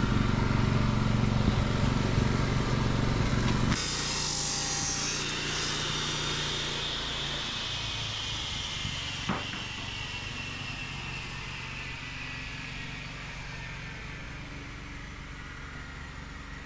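Gas-powered cut-off saw used for cutting pavers: its engine runs loudly for about the first four seconds. Then the sound changes abruptly to a quieter hiss with a high whine that slowly falls in pitch and fades, like the blade winding down.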